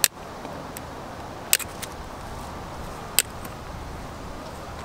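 Hand bolt cutters snapping through the steel wire basket around a tree's root ball: a few sharp metallic snaps, the loudest about a second and a half in and again about three seconds in.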